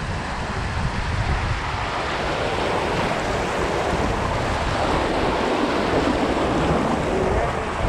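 Rushing water of river rapids, a steady noise that grows slightly louder, with low rumble on the microphone.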